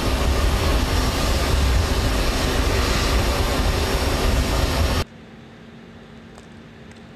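Loud, steady helicopter engine and rotor noise that cuts off suddenly about five seconds in, leaving a faint low hum.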